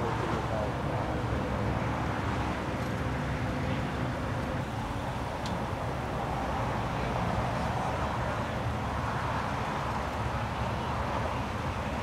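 Steady rumble of freeway traffic.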